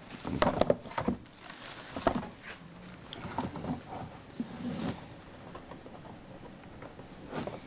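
Scattered light clicks, knocks and scratching of plastic being handled: a cable tie being pushed through holes drilled in a hard plastic tool case.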